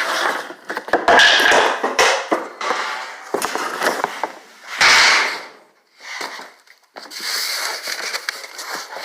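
Rustling and scraping as a box of unassembled wooden hive cover parts is unpacked, with several sharp knocks of the wooden pieces being handled.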